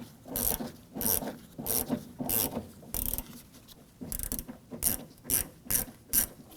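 Ratchet turning a T20 Torx bit to loosen a screw, clicking in short back-and-forth strokes about twice a second, with a brief pause midway.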